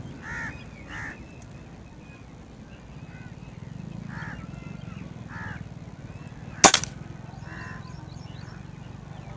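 A single shot from a spring-piston LB-600 air rifle, a sharp crack about two-thirds of the way through and the loudest sound here. A bird calls several times in short cries before and after the shot.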